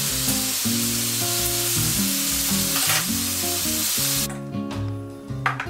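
Sliced pork belly sizzling as it fries in a frying pan. The sizzle cuts off suddenly near the end, leaving guitar background music.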